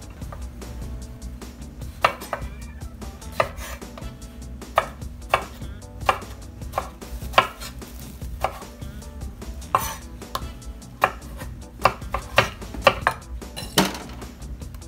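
Chef's knife slicing tomatoes on a wooden cutting board: sharp knocks of the blade meeting the board, one or two a second at an uneven pace, starting about two seconds in.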